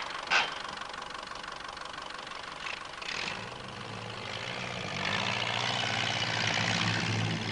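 Ferguson TE20 tractor engine running, a steady low hum that comes in about three and a half seconds in and grows louder a second or so later.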